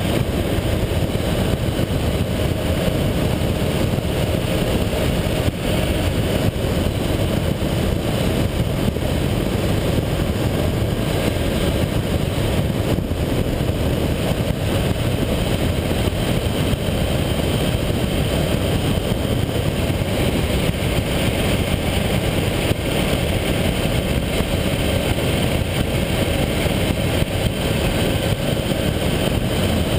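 Honda VFR800 motorcycle riding steadily at road speed: a constant rush of wind on the microphone and tyre-on-asphalt noise, with the bike's V4 engine running underneath.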